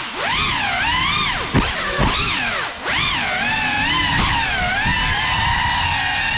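Small FPV cinewhoop drone's motors and propellers whining, the pitch swooping up and down with each throttle change over a rushing prop wash. There is one sharp tick about one and a half seconds in, and a brief dip in the sound just before the midpoint where the throttle is chopped.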